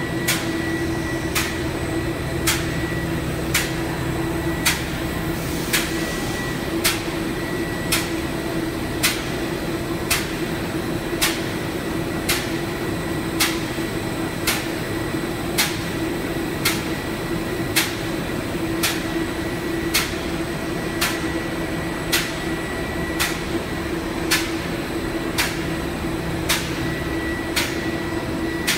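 Solventless silicone coating machine running: a steady hum with a held mid tone, crossed by evenly spaced sharp ticks about once a second.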